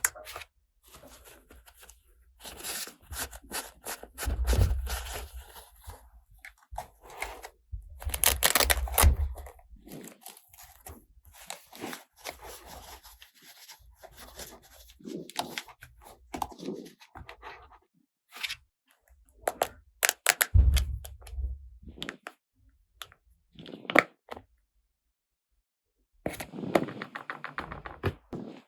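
Toy unboxing handling sounds: packaging tearing and rustling, with plastic toy pieces clicking and knocking. It comes in irregular bursts, and the loudest stretches are about four seconds and eight to nine seconds in.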